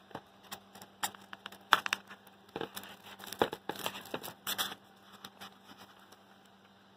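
Irregular crinkling, rustling and clicking of insulating wrap being handled, busiest in the first five seconds and dying away after.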